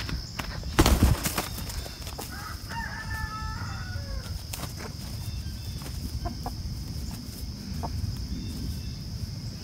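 Chickens: a loud burst of wing flapping and scuffling about a second in as a rooster goes after a hen. About two and a half seconds in comes a rooster's crow lasting about a second and a half, falling at its end, followed by a few faint clucks over a steady high-pitched drone.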